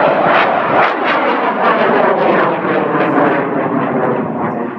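High-power model rocket motor burning as the rocket climbs: a loud, rough roar with crackle running through it, easing off a little near the end as the rocket gets farther away.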